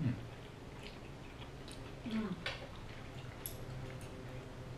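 People eating instant noodles with chopsticks: soft chewing and slurping with scattered light clicks and smacks, and two short murmured mouth sounds, one at the start and one about two seconds in, over a faint low hum.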